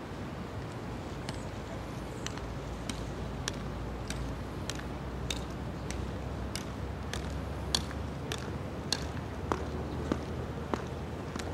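Measured footsteps of a soldier's hard-soled dress shoes clicking on stone paving, an even march of sharp clicks a little more than one a second, starting about a second in, over a low steady outdoor hum.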